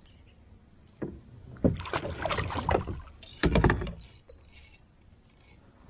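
Handling noise in a kayak: knocks, clatter and rustling of gear against the kayak hull as a landing net is picked up, with one heavier, deeper thump about halfway through.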